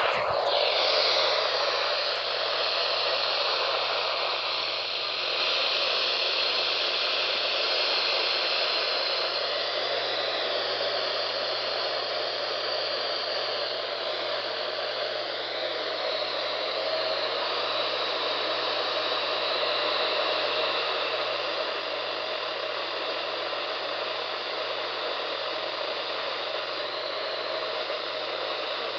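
Radio receiver static: a steady, even hiss from a radio tuned to no usable signal, with a faint low hum underneath.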